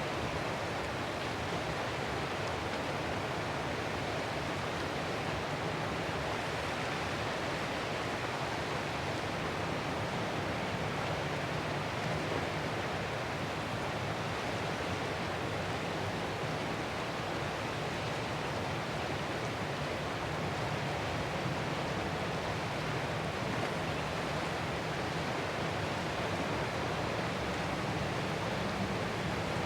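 Ocean surf heard as a steady, even wash of noise, with no separate waves rising or breaking.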